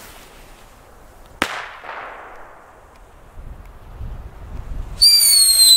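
Original Fireworks Ground Mouse ground whistlers going off: a sharp bang about a second and a half in, then near the end a loud, high, piercing whistle that falls slightly in pitch.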